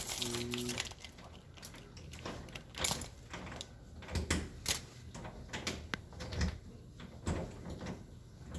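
Lock picks and a tension wrench working inside a door lock: irregular small clicks and scrapes, with the lock not opening.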